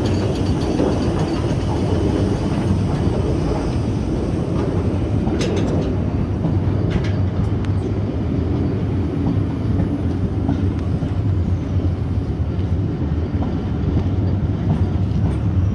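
Steam-hauled passenger train arriving behind LMS Princess Coronation Class 4-6-2 No. 6233 Duchess of Sutherland: a steady rumble of the train rolling along the rails, with a couple of sharp clanks partway through.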